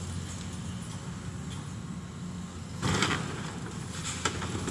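Caterpillar 324E excavator's diesel engine running steadily as its grapple tears at a wooden building. About three seconds in comes a short crash of breaking wood and falling debris, then a few sharp cracks near the end.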